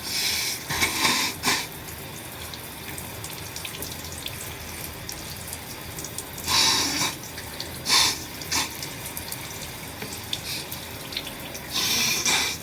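Shower water running steadily, with several short, noisy bursts of breath through a congested nose standing out above the spray: at the start, twice around seven to eight seconds in, and near the end.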